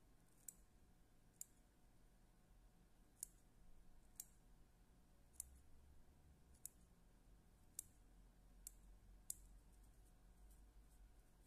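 Small scissors snipping deer hair on a hopper fly: about nine faint, sharp snips at irregular intervals of roughly a second.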